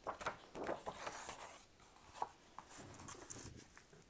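Sheets of drawing paper being shifted and slid over each other on a desk and smoothed flat by hand, soft rustling broken by a few light ticks.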